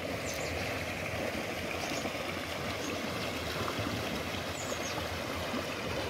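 Shallow mountain stream running steadily over bedrock ledges and small cascades.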